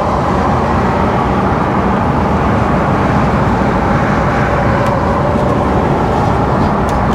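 Steady engine and road noise inside a Mercedes-Benz Actros lorry cab while it drives at speed.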